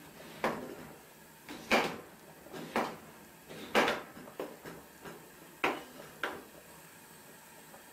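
Sharp, irregularly spaced knocks and clacks of kitchen items being handled, about seven of them.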